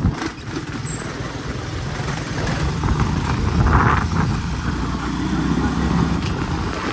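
Motorcycle engine running steadily on the move.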